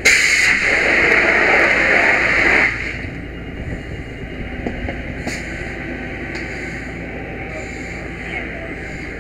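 Firefighter's hose nozzle opened at a smoky doorway: a loud hiss of water spraying for about two and a half seconds, then shut off abruptly. A steady low rumble carries on underneath.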